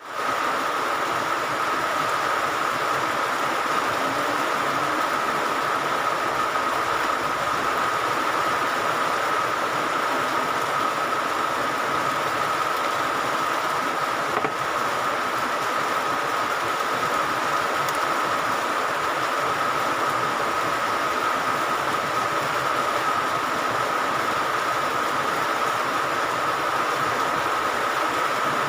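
Heavy rain falling, a steady hiss that does not let up.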